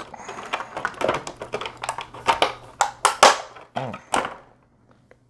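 Hard plastic clicking and knocking as accessories are handled and taken out of a clear plastic case: a quick run of irregular taps that stops about four seconds in.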